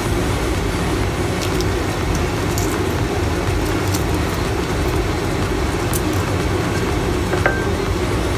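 A steady low mechanical rumble and hum. Over it come a few faint light clicks as a century egg's shell is tapped and cracked.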